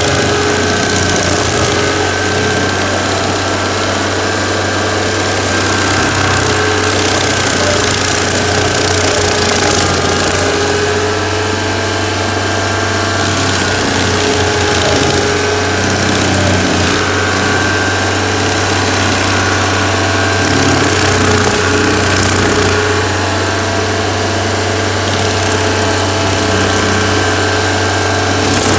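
Stump grinder's gasoline engine running steadily while its toothed cutter wheel grinds into an oak stump, throwing wood chips.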